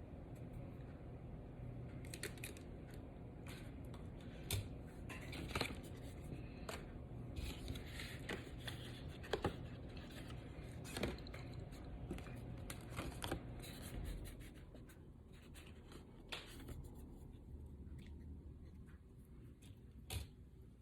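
Handling of a phone's box and packaging: scattered clicks, scrapes and light rustles of cardboard and plastic, over a low steady hum.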